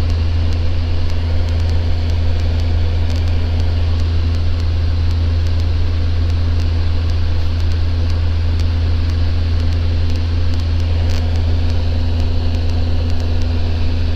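Socata TB10 Tobago's four-cylinder Lycoming engine and propeller droning steadily in flight, heard inside the cabin as a deep, even hum.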